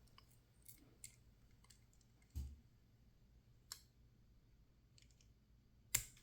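Faint, scattered small metal clicks and taps of a tool working pins and springs out of a disassembled dimple lock. There is a duller knock about two and a half seconds in and a sharper click near the end.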